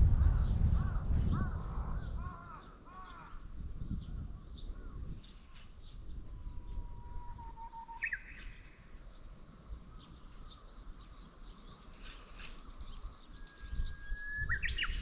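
Birds calling: a quick run of about six short, arching cries in the first few seconds over a low rumble that dies away. Then one long, steady whistled call ends in a sharp upward sweep near the middle, and another call rises near the end.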